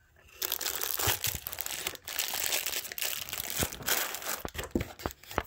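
A clear plastic bag of small chrome hardware parts being handled and crinkled: a dense crackling that starts about half a second in and carries on with scattered sharper clicks.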